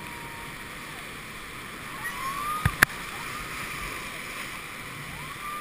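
Whitewater rapid rushing and splashing around a river raft, with two sharp knocks in quick succession a little before halfway through.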